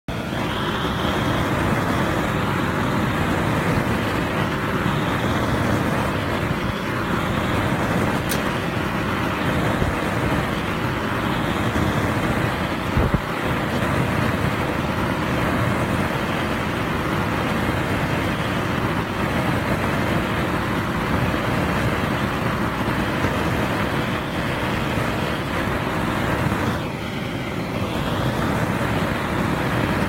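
Gas torch flame burning steadily with an even rushing hiss, briefly easing a few seconds before the end.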